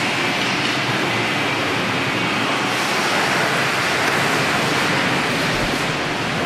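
Steady, loud rushing hiss of a steel fabrication shop's machinery, even throughout with no rhythm or distinct knocks.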